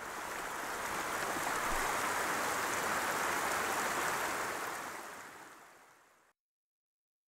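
Logo-reveal sound effect: a swell of even noise with no tone in it that builds over the first couple of seconds, holds, and fades out about five to six seconds in.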